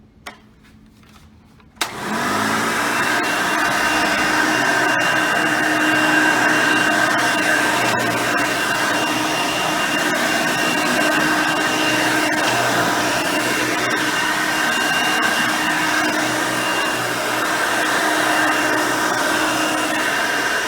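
Hoover Elite upright vacuum, with a 5-amp motor, 9-blade fan and a stiff-bristled brush roll, switched on with a click about two seconds in, spinning up quickly and then running steadily with a whine over the carpet.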